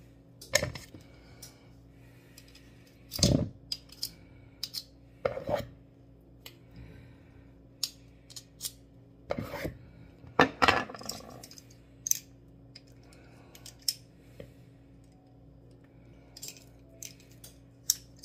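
Metal garlic press being handled over a plastic bowl as minced garlic is scraped out and the press is taken apart: irregular metallic clicks and clinks, with a few louder knocks.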